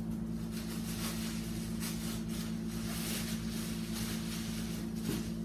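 Paper and cardboard rustling as a hand rummages through a shipping box, over a steady low hum.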